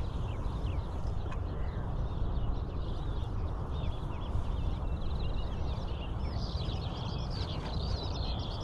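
Birds chirping and singing, many short rising and falling calls that get busier about halfway through, over a steady low rumble.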